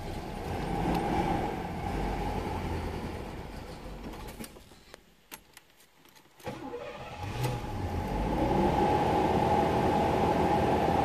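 1982 Pontiac Trans Am's 305 V8 running, then switched off about four seconds in. After a couple of seconds of near quiet with a few clicks, it starts again and settles into a steady idle, heard from inside the cabin.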